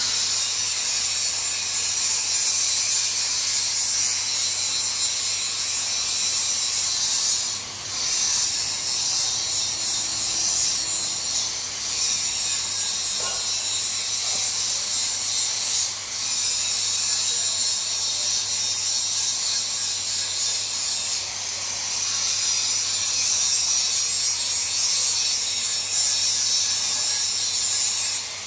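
TIG (argon) welding arc hissing steadily as a root pass is laid on low-temperature steel pipe, with a low hum underneath. It dips briefly twice and stops at the very end.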